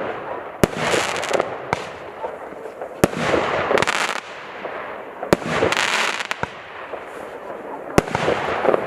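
Fireworks going off in a series of shots: five sharp bangs a second or two apart, each followed by about a second of dense crackling.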